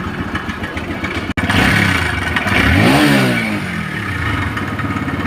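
TVS Raider motorcycle engine idling, then revved once, its pitch rising and falling back to idle. The engine noise is under test for a worn timing chain.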